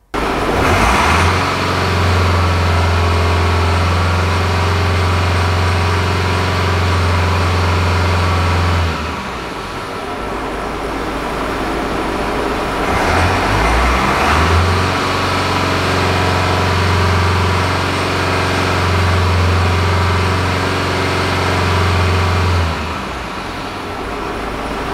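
Subaru 2.0 boxer diesel (flat-four turbodiesel) engine held at a steady fast idle of about 2500 RPM, which is the test speed for an exhaust back-pressure check at the diesel particulate filter. It drops back toward idle about nine seconds in, comes back up to the same steady speed, and settles down again about two seconds before the end.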